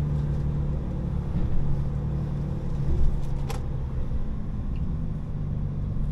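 Truck's diesel engine running steadily at low revs, with one short sharp click about three and a half seconds in.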